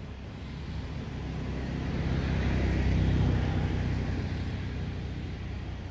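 A road vehicle passing by: its engine and tyre noise swell to a peak about three seconds in, then fade away.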